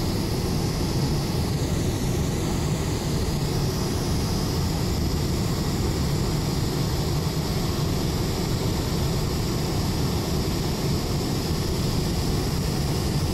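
Steady aircraft noise from a Boeing 747 on approach to land: a low rumble with a rush of air. A faint high whine dips and rises about two seconds in.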